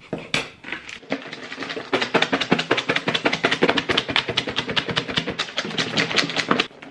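Salad being shaken hard inside a lidded plastic takeaway bowl: the contents rattle and knock against the walls and lid several times a second, starting about a second in and stopping just before the end.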